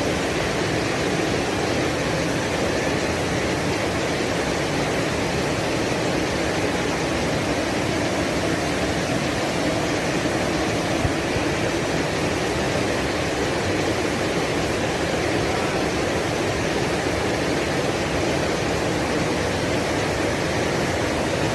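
A waterfall: water falling in a steady, unbroken rush.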